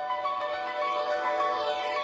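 A Nokia Lumia 520 ringtone playing: an instrumental melody of layered, sustained notes that starts right at the beginning.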